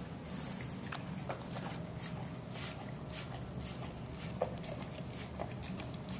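A dog licking food off a small plate, with irregular wet smacks and clicks of tongue on plate, about two or three a second.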